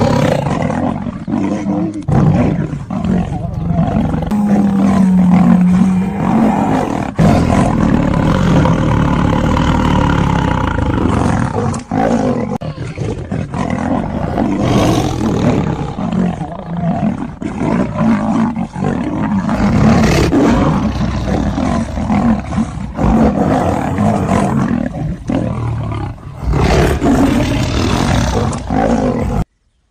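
A tiger and a lion fighting: loud, continuous growls and roars that barely let up, with short lulls about twelve seconds in and again near the end.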